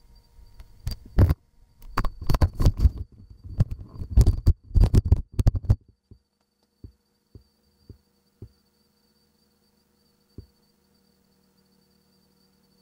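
Irregular knocks and taps close to the microphone, a rapid cluster for about six seconds, then a handful of single taps a second or so apart, over a faint steady hum.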